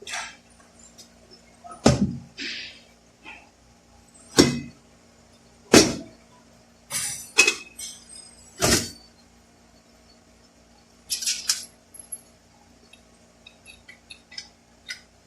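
Metal parts and tools clanking and clinking as they are handled on a workbench: about eight sharp knocks over the first nine seconds, a quick rattle of small clinks around eleven seconds, then a few light ticks near the end.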